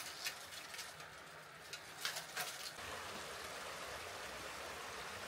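A few sharp clinks and rustles, then from about three seconds in the steady rush of a shallow mountain stream running over rocks.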